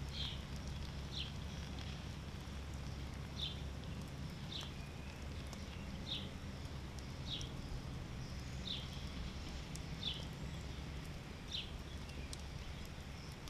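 A bird repeating a short, high, downward-sliding chirp about every second and a half, over a steady low rumble.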